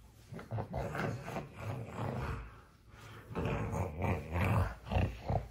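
A man making low, growling vocal noises in short irregular bursts, louder in the second half, while a baby nuzzles his face.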